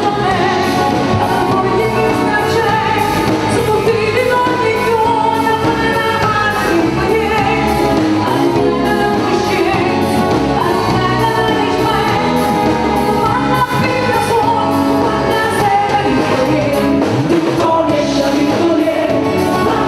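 Pop band playing with a drum kit and keyboards, a woman and a man singing lead vocals over a steady drum beat.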